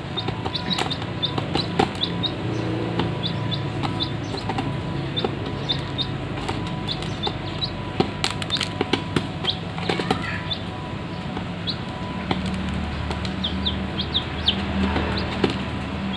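Young chicks peeping over and over, several short high chirps a second, mixed with sharp taps of beaks pecking grain against a metal basin. A steady low hum runs underneath.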